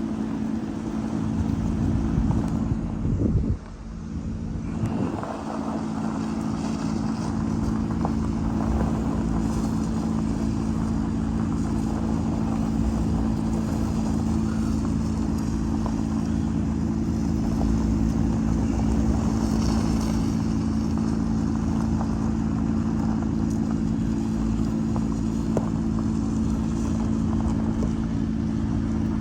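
A motor vehicle's engine running steadily at an even speed, with a brief dip in level about three to four seconds in.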